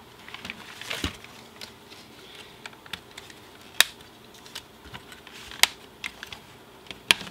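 Hard plastic clicking and snapping as a snap-in aftermarket dash kit is unclipped from a Dodge Dart's plastic centre dash panel and the panel is turned over and handled. Sharp snaps come about a second in, near four seconds, at about five and a half seconds and just before the end, with lighter clicks between them.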